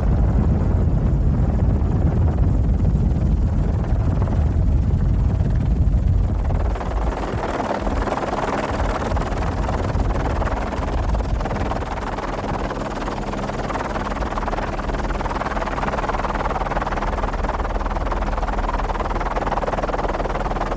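Heavy low rumble of wind and rough sea, changing about seven seconds in to a steady helicopter drone with a low hum.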